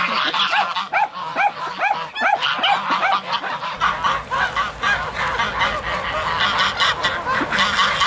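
A flock of domestic geese honking as they crowd in to be fed: many short honks, several a second, overlapping one another.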